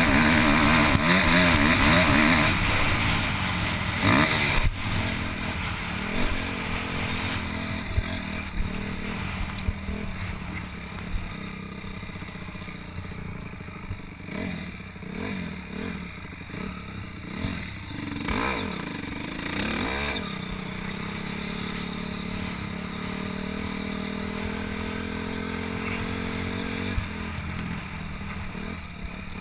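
Motocross bike engine heard onboard while riding. It runs loud at high revs for the first couple of seconds, then revs rise and fall repeatedly, settles into a steadier note, and eases off near the end.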